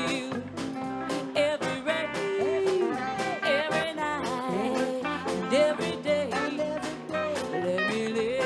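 Live band playing an instrumental passage of a country-gospel song: a lead melody with sliding notes over guitar chords and a steady drum beat.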